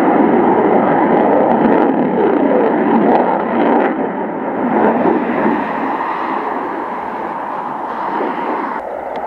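Jet noise from a Belgian Air Force F-16's afterburning turbofan in flight at a distance: a loud, steady rushing noise whose tone shifts slowly as the jet moves across the sky, dropping a little about four seconds in.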